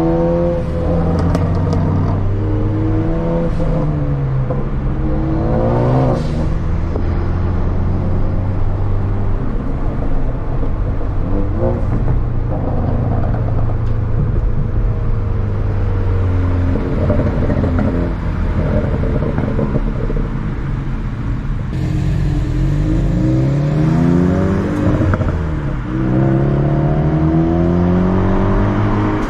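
Ford Focus ST's turbocharged four-cylinder through a Borla cat-back exhaust, revving up and down through the gears several times between steadier stretches of running, heard from another car. A few faint sharp cracks come through on the rev changes, from its pops-and-crackles tune.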